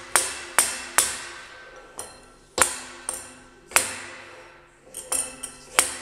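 Hammer blows on a block held against a bent sheet-metal drum switch cover, straightening the bend, with the block spreading each blow over a wider area. There are about ten sharp, ringing strikes at an irregular pace, with a quick run of several near the end.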